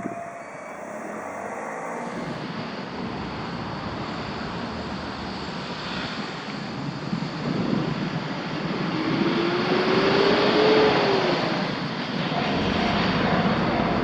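Train passing over a level crossing: the rumble of wheels on rail builds steadily, loudest about ten seconds in. A tone glides upward in pitch as it peaks.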